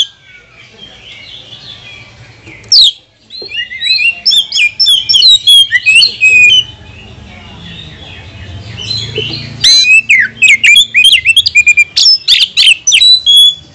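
Oriental magpie-robin singing loud, rapid bursts of varied chirps and whistles: a short phrase about three seconds in, a long run from about three and a half to six and a half seconds, and another from about ten seconds almost to the end.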